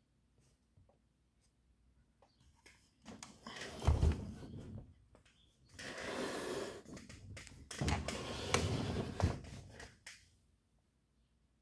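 Handling noise: scraping and rubbing in three stretches, with a few low thumps, as a subwoofer cabinet is shifted about on a table.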